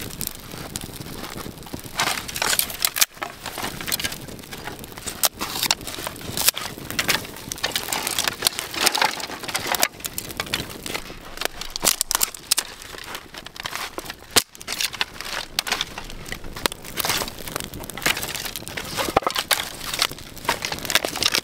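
Small campfire of dry grass tinder and birch twigs crackling as it catches, with irregular sharp pops and snaps.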